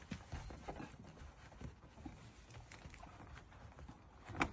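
Scattered light clicks and taps of lockout tools worked against the car door frame and window, with one sharper click near the end.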